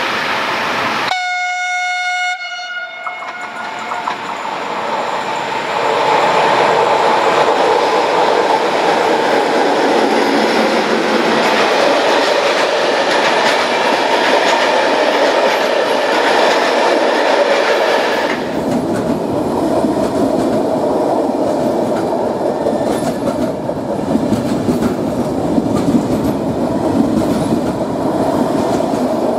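A train horn sounds one short note about a second in. A train then passes through the station, its noise building over a few seconds into a loud, steady rumble with wheels clattering over the rail joints.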